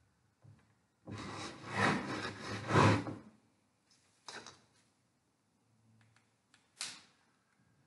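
Caucasian fir and thuja branches rustling as they are picked up and handled: a long, loud rustle about a second in that lasts some two seconds, then two short rustles near the middle and near the end.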